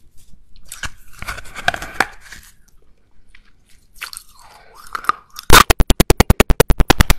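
Close crunching and chewing of soaked china clay chunks, in two spells. About five and a half seconds in, a much louder rapid pulsing of about ten even beats a second cuts in.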